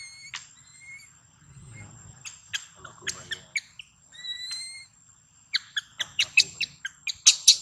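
Baby long-tailed macaque crying for milk with short, high whistled coos, and runs of quick, sharp chirps that are loudest near the end.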